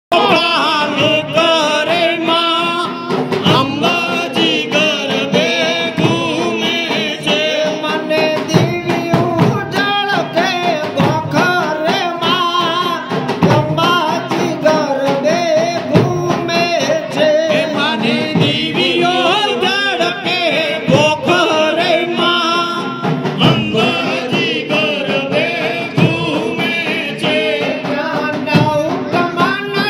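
Garba song sung into a microphone and played through a small PA system, with a steady drum beat under the wavering sung melody.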